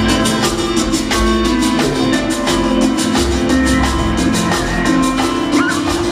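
Cumbia dance music playing loud, with drums keeping a steady beat under guitar and bass.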